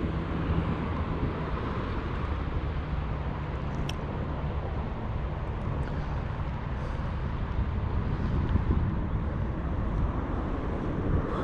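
Steady rumble of road traffic crossing a road bridge, with low engine tones early on, mixed with wind on the microphone.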